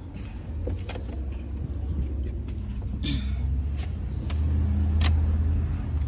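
A motor vehicle engine running with a low, steady rumble that grows louder in the second half, with a few light clicks and a brief rustle of handling.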